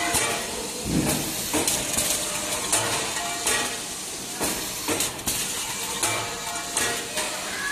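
GZP-150 servo flow-wrapping machine and its infeed conveyor running: a steady hiss with clicks and knocks repeating roughly every half second to a second.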